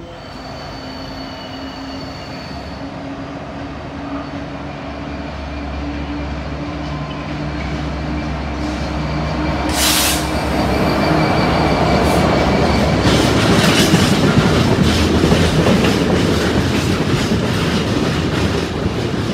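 Freightliner Class 66 diesel locomotive running through close by, its two-stroke V12 engine a steady drone that grows louder as it nears, with a short hiss about halfway. It is followed by tank wagons rumbling and clattering over the rail joints with faint wheel squeal, loudest about two-thirds through.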